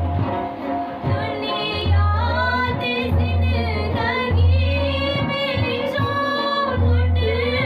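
A woman singing a Burushaski ginan, a devotional song, accompanied by a plucked rubab and a large frame drum (daf) struck in a steady beat of deep strokes. The singing enters about a second in.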